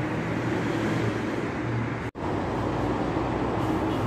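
Steady road traffic noise with a low hum underneath. It breaks off completely for an instant about halfway through.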